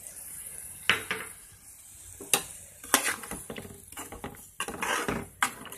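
Bombay duck fish cooking in hot oil in a steel pan with a steady sizzle, as tamarind pulp is poured in and stirred. A utensil knocks and scrapes against the pan several times.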